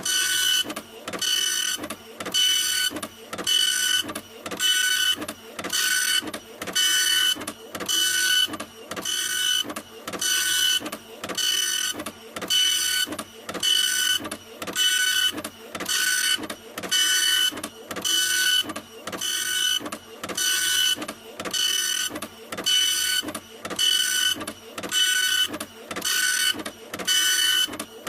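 Printer running, its print mechanism repeating the same stroke a little under once a second, each stroke carrying a steady motor whine.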